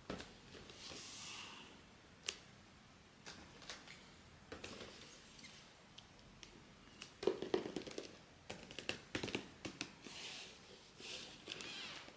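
Hands handling blind-box packaging, cardboard and plastic, giving scattered small clicks and taps with a few brief rustles. A quick run of louder clicks comes about seven seconds in.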